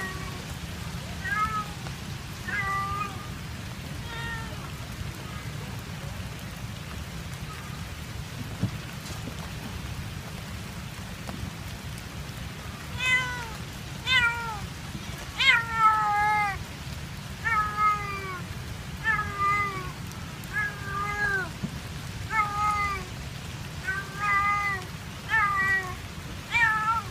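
Calico domestic cat meowing again and again, each call drawn out and bending in pitch: three calls, a pause of several seconds, then louder meows about once a second. The uploader takes them for the sad calls of a cat left behind by its owner. Steady rain is heard underneath.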